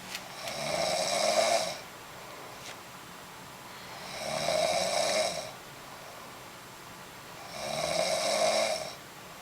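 A woman snoring in her sleep: three long snores, each lasting a little over a second, coming about every three and a half seconds.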